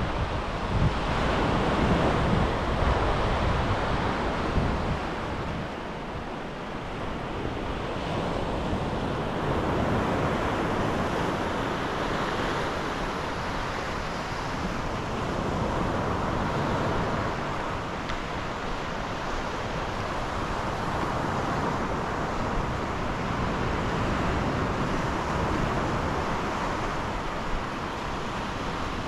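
Sea waves breaking and washing up on a beach, swelling and ebbing every several seconds, with wind buffeting the microphone, strongest near the start.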